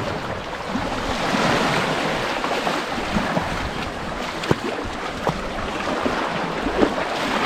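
Steady wind noise on the microphone over waves washing on the shore, with a few sharp knocks about halfway through and near the end.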